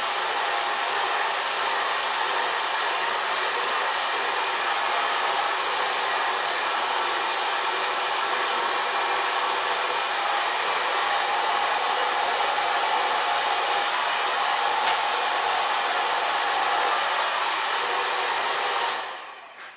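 Hair dryer running steadily on a loud, even blowing rush, then switched off near the end, the sound dying away over about a second.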